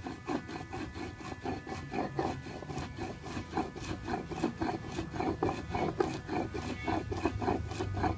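Stone mano scraped back and forth over a stone metate, grinding annatto (achiote) seeds: a rapid, even run of gritty rubbing strokes.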